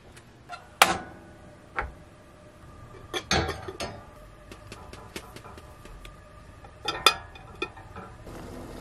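Clanks and clinks of a glass teapot being set down on a gas range's metal burner grates, with the range's glass cover being handled: a handful of sharp, ringing knocks spread over several seconds. Near the end a steady soft hiss begins.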